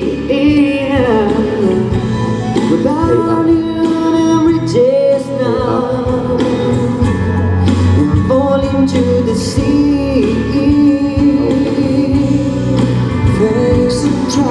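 A pop song sung live over a backing track through a concert PA, vocals over steady accompaniment without a break.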